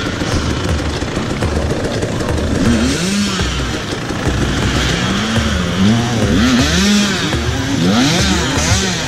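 Enduro motorcycle engine revving up and down over and over, the throttle blipped and released in quick succession, with the swells coming faster and overlapping in the second half.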